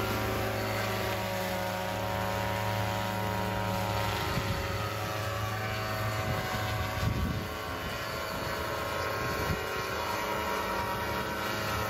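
Yamaha unmanned crop-spraying helicopter flying low as it sprays pesticide, its small engine and rotor droning steadily with a whine of higher overtones. The deepest part of the hum drops away about four seconds in as it moves off.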